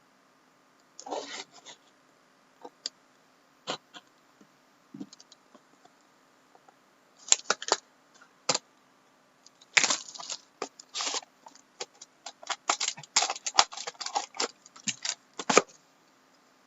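Hands handling trading cards and their packaging: irregular crinkles, taps and clicks, sparse at first and busy through the second half.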